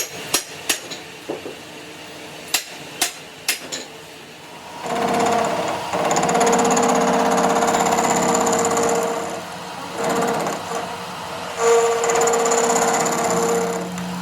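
Several sharp knocks, then a power tool running in three bursts with a steady whine and a fast rattling rhythm, the last burst stopping near the end.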